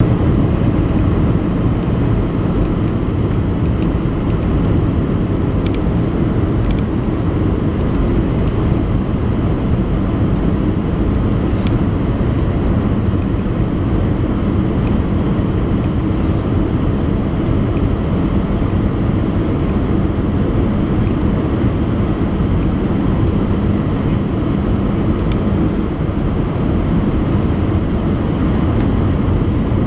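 Steady low roar of airflow and jet engines inside an Airbus A320 passenger cabin, heard from a window seat, with a few faint ticks.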